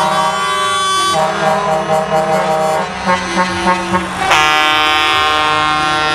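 Semi-truck air horns blowing as a convoy of truck tractor units drives past. One horn sounds for about the first second, a few short toots come around three seconds in, and a longer, louder blast starts about four seconds in and lasts about two seconds.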